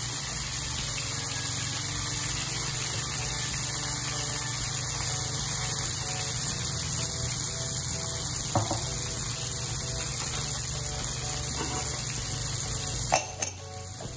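Garlic sauce of soy sauce, honey and brown sugar sizzling in a frying pan: a steady hiss. A few sharp clicks from a measuring spoon come about two-thirds of the way through and twice near the end, as brown sugar is spooned in.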